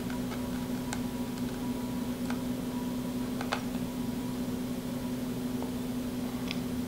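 Steady low hum in a small room, with a few faint, light clicks from the soldering iron tip and wire being worked on a circuit-board solder pad.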